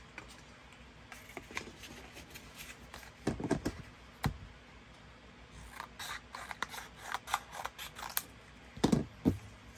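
Scissors snipping through cardstock in short, irregular cuts, with a quick run of snips in the second half and a couple of louder knocks near the end.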